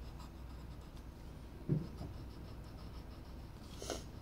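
Graphite pencil scratching faintly on paper while drawing a face's eyes and mouth. A brief low thump about a second and a half in, and a short click near the end.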